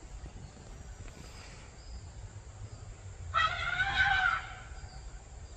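Wild Asian elephant trumpeting once, a loud pitched call with a slight bend in pitch lasting about a second, a little over three seconds in.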